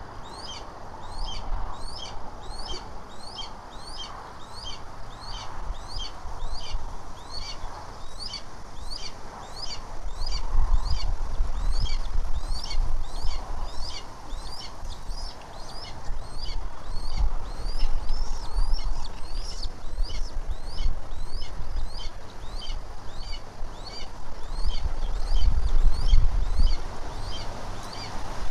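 A small bird's high chirp repeated steadily, about twice a second, each note sliding down in pitch. Gusts of wind rumble on the microphone about a third of the way in and again near the end.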